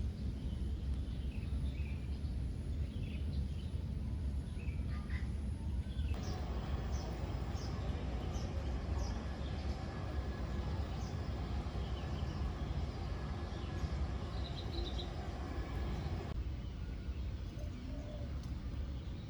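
Outdoor ambience: scattered short bird chirps over a steady low rumble. About six seconds in the background changes abruptly and a run of high chirps repeats roughly twice a second; near the end it changes abruptly again and grows thinner.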